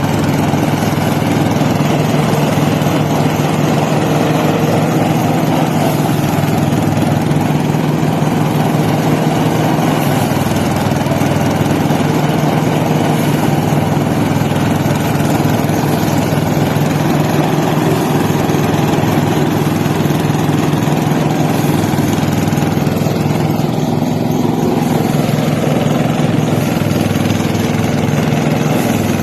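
An engine running steadily at an even speed, with a constant hum.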